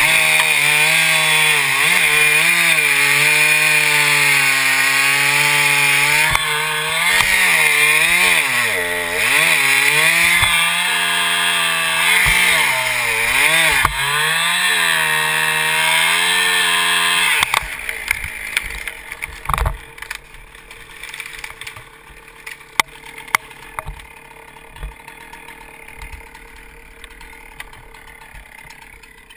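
Chainsaw running at high revs, its pitch dipping and recovering several times, then cut off suddenly about two-thirds of the way through. After it stops there are scattered faint clicks and one thump.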